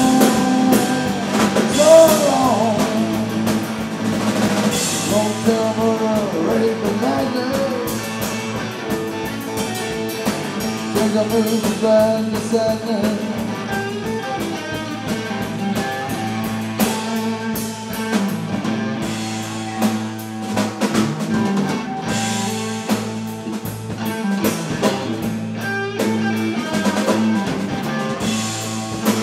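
Live rock band playing amplified: drum kit keeping a steady beat under electric guitar and bass guitar, an instrumental passage of the song.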